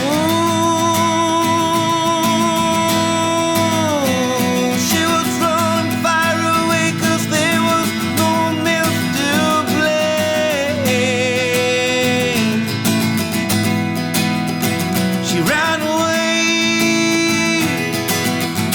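A song's instrumental passage: strummed guitar chords under a lead melody of long held notes that slide between pitches with vibrato.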